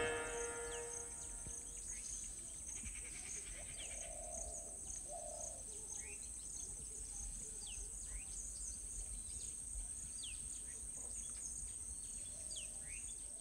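Natural outdoor ambience: a steady high-pitched insect drone, with scattered short chirping bird calls over it. Plucked-string music fades out in the first second.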